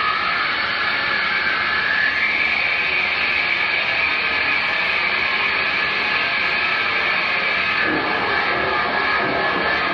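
Electric guitar through a chain of effects pedals, making a dense noisy drone with a high sustained tone that slides upward over the first two seconds and then holds. Lower guitar notes come in near the end.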